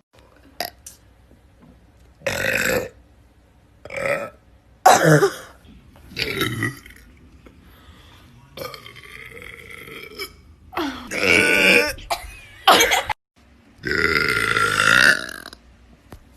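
A string of burps from young women, about eight, one after another: some short and sharp, others drawn out for a second or more.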